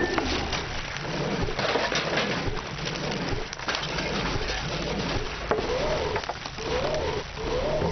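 Pigeons cooing over and over, each call rising and falling, over a steady crackly hiss.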